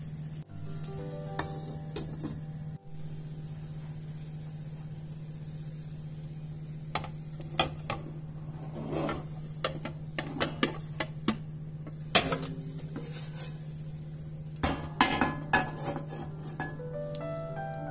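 Potato pancake sizzling in a nonstick frying pan, then, from about seven seconds in, a string of sharp clinks and knocks as a plate is set over the pan and the pancake is turned out and slid back in.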